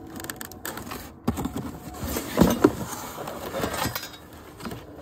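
Corrugated cardboard packing rubbing and scraping as hands pull a cardboard insert out of a shipping box. There are a few sharper knocks, the loudest about two and a half seconds in.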